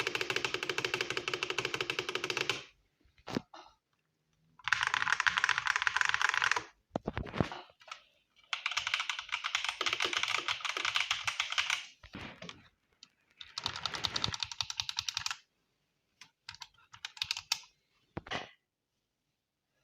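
Mechanical keyboard being typed on fast: four runs of rapid key clacks a couple of seconds long, separated by short pauses with a few single keystrokes.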